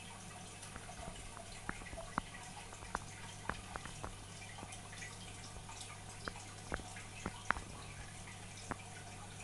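Aquarium water dripping and bubbling: about a dozen small, sharp plinks at irregular intervals, the loudest about two-thirds of the way through, over a steady low hum.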